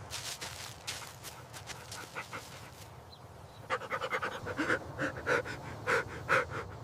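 A puppy panting in quick breathy strokes, then from about four seconds in letting out a run of short, pitched cries.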